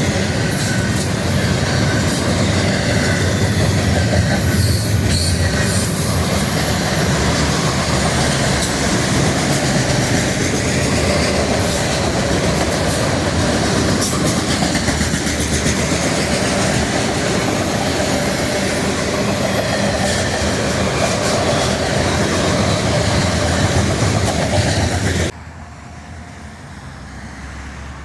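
A train rolling past close by, its railcars' wheels running loudly on the rails. The sound drops off suddenly about 25 seconds in, leaving quieter background noise.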